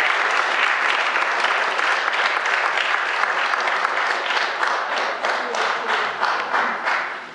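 Church congregation applauding: many people clapping together in a steady patter that thins out and dies away near the end.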